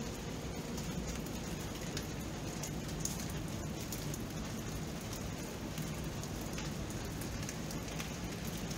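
Steady rain falling: an even hiss with scattered sharp drops ticking through it.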